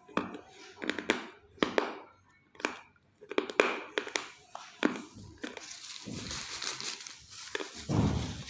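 Crunching and chewing of roasted clay pot pieces: a run of sharp, crackly bites in the first five seconds, then a longer gritty grinding with a heavier crunch near the end.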